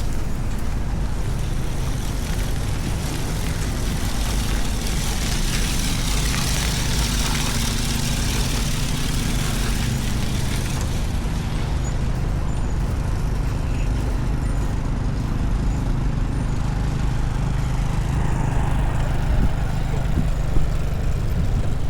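A large road vehicle's engine running steadily close by, with a broad hiss that swells about four seconds in and fades away by about eleven seconds, amid city traffic.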